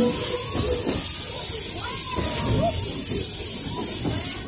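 Puffing Billy narrow-gauge steam train running, a steady high hiss over the low rumble of the moving train, with faint voices. The hiss cuts off suddenly near the end.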